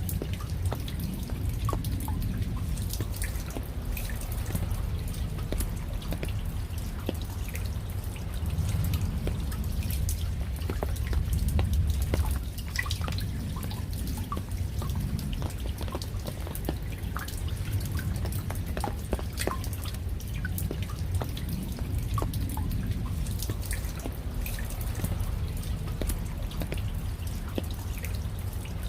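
Raindrops dripping and pattering, many separate drops landing at irregular moments, over a steady low rumble.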